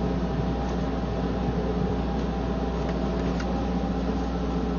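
Steady mechanical drone of a running engine or motor: a heavy low rumble with several steady hum tones and no change in pace.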